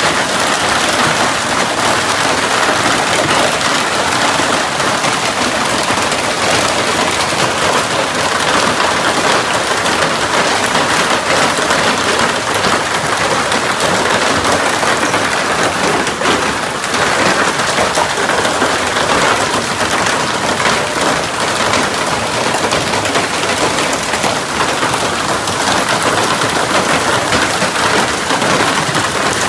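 Heavy hail pelting a pickup truck, plastic wheelie bins and the ground: a dense, steady clatter of countless small ice impacts that does not let up.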